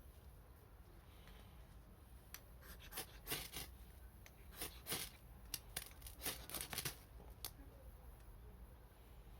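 Small wood fire crackling: a run of sharp snaps and pops for about five seconds in the middle, over a faint low hum.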